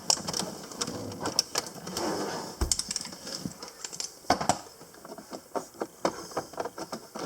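Plastic door-jamb trim panel of a C6 Corvette being pried off with a thin plastic tool: a run of irregular clicks, ticks and scrapes as the tool works behind the trim and the clips let go.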